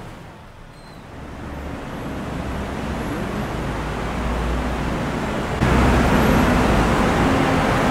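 Steady road traffic on wet streets, a rumble of engines with tyre noise, growing louder over the first few seconds and stepping up suddenly about five and a half seconds in.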